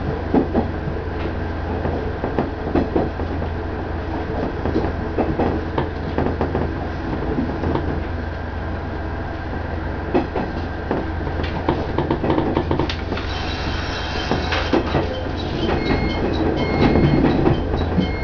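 KiHa 110 series diesel railcar running, with a steady low engine hum and wheels clicking over rail joints and points. High ringing tones come in during the second half.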